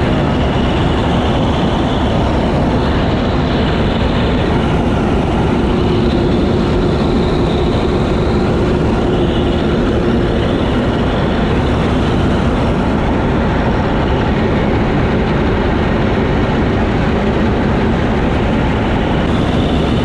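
Massey Ferguson 86 combine harvester running steadily while harvesting triticale: a constant, loud engine and machinery drone.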